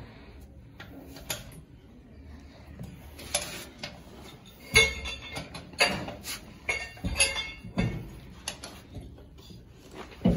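Irregular sharp metal clanks and clinks, several of them, with ringing, as a tractor's steel-rimmed front wheel is worked onto its hub. The loudest clank comes about five seconds in.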